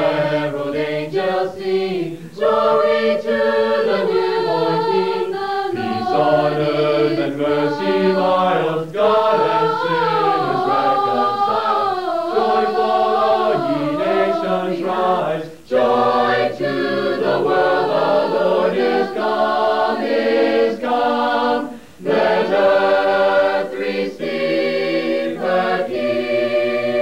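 Mixed a cappella choir of men's and women's voices singing in harmony without accompaniment, with brief pauses between phrases about sixteen and twenty-two seconds in.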